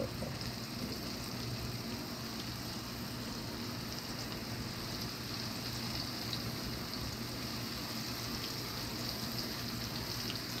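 Breaded white trout fillets sizzling steadily in hot oil in a cast-iron skillet, a constant crackling hiss.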